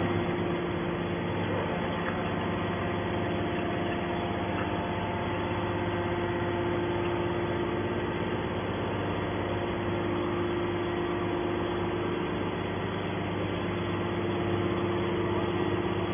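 Hydraulic can baler's motor and pump running, a steady hum with a few held tones.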